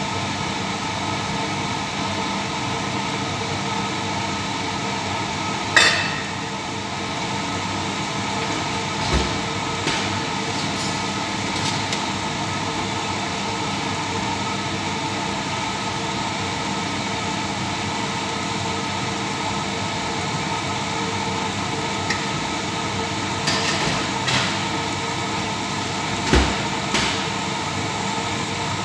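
Chicken frying in a lidded stainless steel pan on a gas burner: a steady, covered hiss with a constant hum under it. A few short clicks or knocks come about six seconds in and again near the end.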